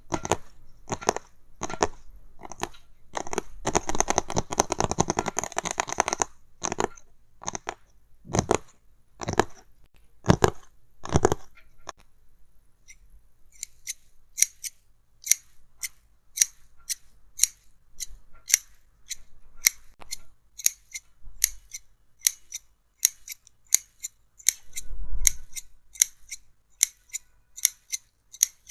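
Close-miked handling of headphone packaging: taps, knocks and a few seconds of scratching or rubbing on the box. About halfway through these give way to a steady run of crisp, high clicks or snips, about two a second.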